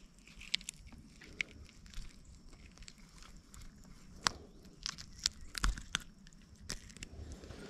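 Scattered light clicks and rustles of hands handling a freshly caught white bass close to the microphone, the sharpest click a little past halfway.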